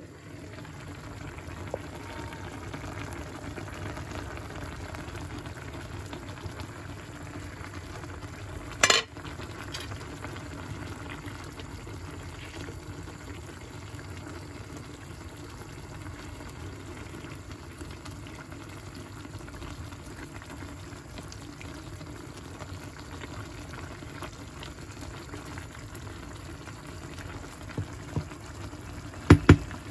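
Food cooking in a pan on the stove, a steady sizzling and bubbling, with one sharp clink of a utensil about nine seconds in and a few knocks near the end.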